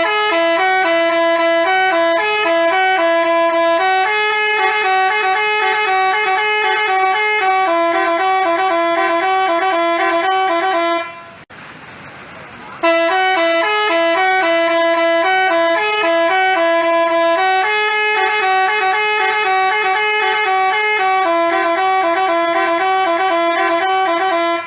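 Telolet basuri musical bus horn playing a fast multi-note melody on several horn tones for about eleven seconds, breaking off near the middle, then playing the same tune again.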